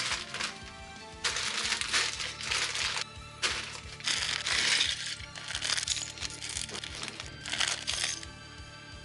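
Clear plastic bags of LEGO pieces crinkling and rustling in repeated bursts as they are handled, over background music; the crinkling stops about eight seconds in.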